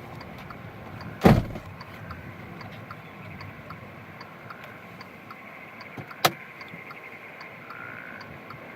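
Steady roar of a nearby tornado. Two sharp bangs cut through it, a loud one about a second in and a shorter one about six seconds in.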